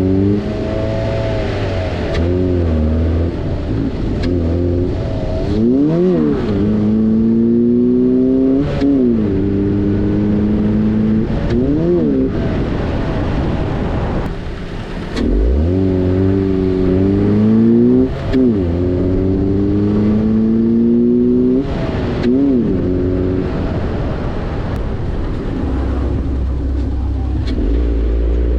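A Volvo's engine breathing through an aftermarket air intake (induction) kit. The car accelerates repeatedly, the engine note climbing steadily and then dropping at each gear change, with several quick rev rises and falls in between.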